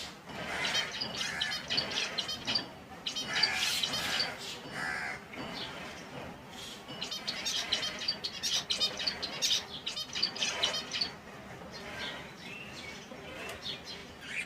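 Finches chirping and trilling, with many short, quickly repeated high notes. The calls come in two busy spells with a thinner stretch between them.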